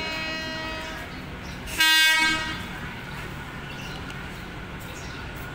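Diesel locomotive's horn sounding as it approaches: a held tone that stops about a second in, then a short, loud blast about two seconds in. After the blast comes the steady running noise of the locomotive.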